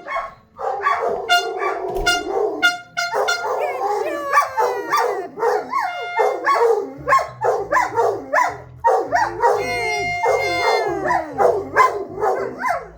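Dogs howling and yipping together in long, wavering, overlapping calls, their 'singing'.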